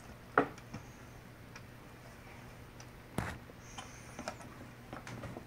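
Scattered faint clicks and knocks of hands handling parts inside a desktop computer case, working a component loose, with the loudest knock about three seconds in.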